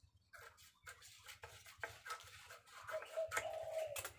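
Scissors snipping and stiff brown kraft paper from an old cement sack crinkling as it is cut and handled, a run of short crisp cuts and rustles. A short drawn-out call sounds about three seconds in.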